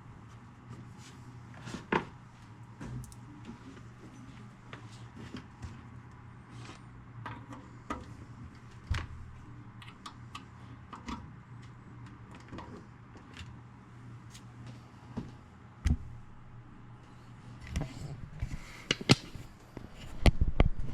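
Scattered clicks and knocks of hands working speaker wire into the rear terminals of a stereo receiver, a cluster of louder knocks near the end, over a steady low hum.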